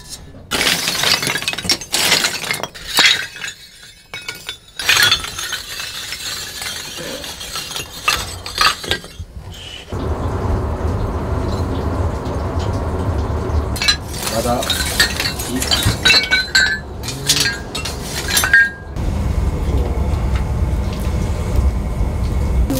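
Hard white charcoal knocked and broken up with a metal scraper in a grill, giving sharp glassy clinks and cracks for about the first ten seconds. Then the charcoal fire burns with a steady low roar and occasional crackles and clinks.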